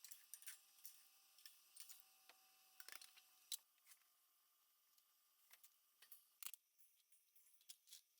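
Near silence: faint room tone with a light steady hum and a scattering of small, sharp clicks and ticks at irregular intervals.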